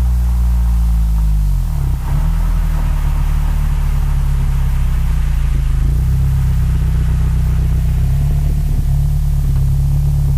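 Acura TSX exhaust with a Yonaka catback running at a steady low engine speed, the pitch dipping briefly and coming back up about two seconds in.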